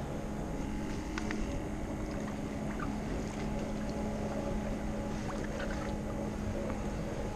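A motor running steadily with a constant low hum over a rumble, and a few faint clicks.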